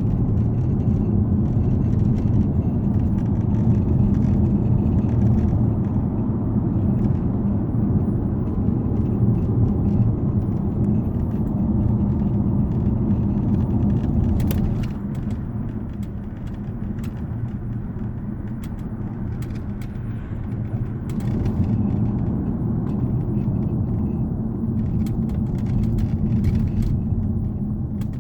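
Steady low road rumble inside a moving Hyundai Genesis, with a sunroof rattle: short sharp clicks that come in clusters, most around the middle and near the end.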